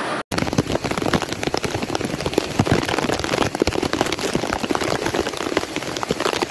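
Heavy monsoon rain pouring down and pattering densely, over the steady rush of floodwater. The sound cuts out for a moment right at the start, then runs on evenly.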